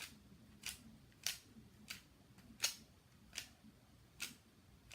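Spin control of a mini Bop It XT carabiner toy being turned, giving sharp plastic clicks about once every three quarters of a second, eight in all.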